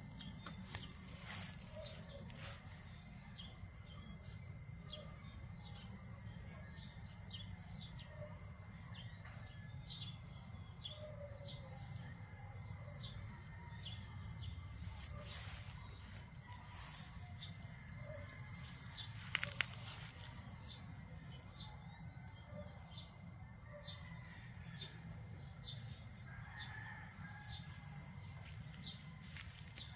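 Small birds chirping over and over, with a steady high-pitched hum and a low rumble beneath. A single short click comes about two-thirds of the way through and is the loudest sound.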